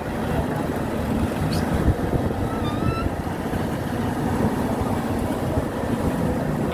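Fishing boat's engine running steadily, with water splashing where fish churn in the purse seine net alongside.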